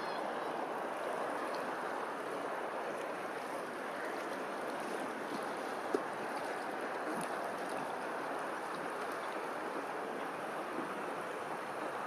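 Steady rushing water, with one sharp click about six seconds in.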